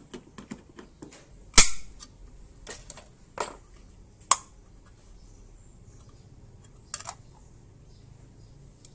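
Pull-tab metal can of engine flush being opened by hand: a few separate sharp clicks and metallic snaps, the loudest about a second and a half in.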